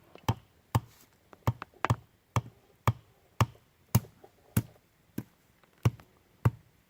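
Repeated sharp blows of a tool striking wood, about two a second in an even rhythm, as in chopping or hammering during shelter building.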